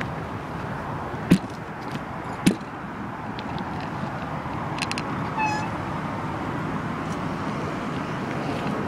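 Steady street-traffic and wind noise heard from a moving bicycle, with two sharp knocks about one and two and a half seconds in and a brief high tone about halfway through.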